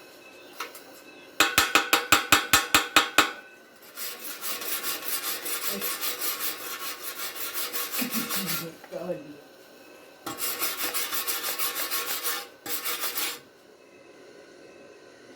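Chipping hammer knocking slag off a stick weld in a fast run of about ten sharp taps, then a wire brush scrubbed rapidly back and forth over the weld in three spells.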